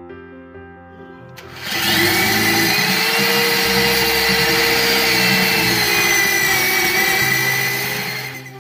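A power grinder starts up about two seconds in and runs steadily for about six seconds with a whine, buffing the freshly vulcanized repair rubber smooth against the tyre's inner liner.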